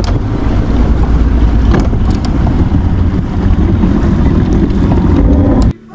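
Wind buffeting the microphone over the steady noise of a small fishing boat moving on the river, a loud low rumble. It cuts off abruptly near the end.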